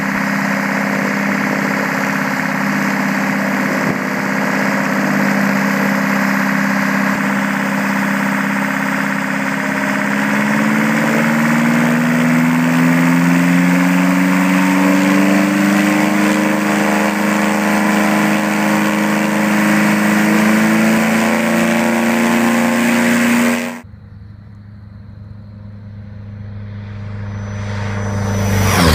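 DeltaHawk DH-180 four-cylinder two-stroke diesel in a Cirrus SR20, running on the ground with the propeller turning. From about ten seconds in, its engine speed climbs gradually and holds higher. It cuts off abruptly near the end, giving way to a propeller plane flying low along a runway, which grows louder and drops in pitch as it passes at the very end.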